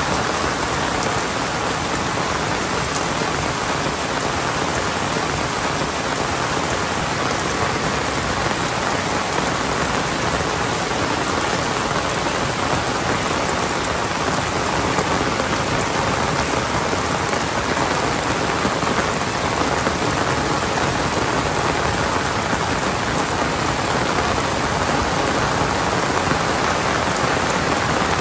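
Heavy monsoon rain pouring down steadily, an even, unbroken downpour.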